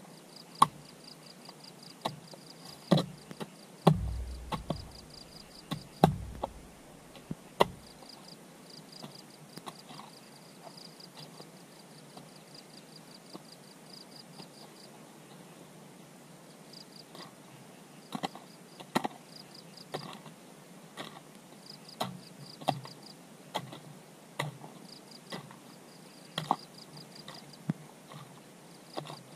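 Repeated strikes of a hand tool chopping or digging, a sharp hit every second or two, with a few heavier thuds about four to eight seconds in and a lull in the middle. Insects chirp steadily in a fast pulsing trill underneath.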